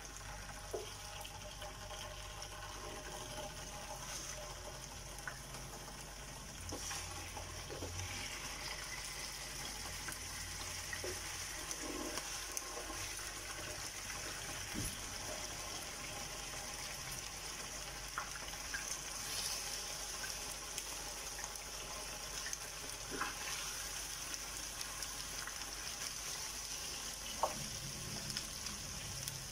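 Pork pieces sizzling steadily as they fry in oil in a pan, with a few faint clicks as more pieces are laid in.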